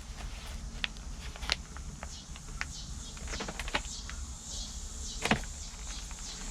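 Scattered light clicks and rustles of potting work: cuttings being planted, pots and soil handled. The sharpest click comes a little past five seconds in.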